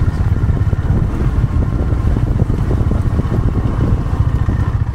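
Motorcycle engine running steadily under way, heard from on the bike as a fast, even low rumble.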